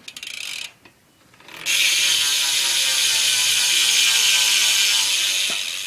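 Primo Remix rear hub on a BMX back wheel freewheeling as the wheel is spun, its pawls clicking so fast they blur into a loud continuous buzz. A short burst comes first, then the full spin starts about a second and a half in and slowly drops in pitch as the wheel slows.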